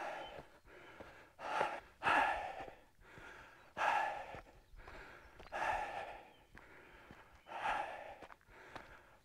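A hiker breathing heavily while climbing a mountain trail, with a loud breath about every two seconds.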